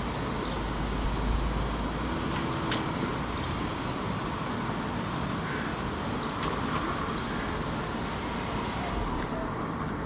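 Steady hum of distant city road traffic, with two faint short ticks.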